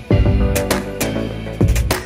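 Background music with a deep bass beat, sharp percussion hits and held chords.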